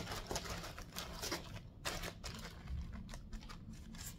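Clear plastic bag crinkling as it is handled, in short irregular rustles.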